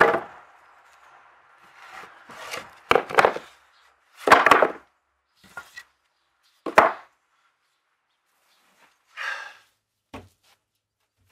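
Wooden blocks and planks being handled and set under a boat hull: a series of separate wooden knocks and short scrapes a second or two apart, the loudest at about three to four and a half seconds and near seven seconds in.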